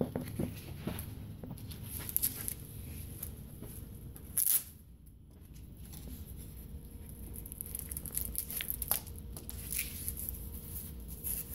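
A white fabric strap, likely hook-and-loop, worked around the hub of an aluminium pop-up display frame: scattered rustles and short ripping sounds. The loudest rip comes about four and a half seconds in.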